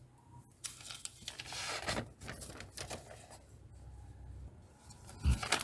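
Pen writing on paper: soft scratchy strokes, densest in the first couple of seconds, then lighter ones, with a short low thump near the end.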